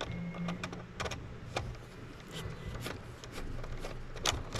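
Scattered small clicks and taps of hands and a tool working at wire connectors on a 3D printer's power-supply terminal block, which will not pull free. A low steady hum runs underneath.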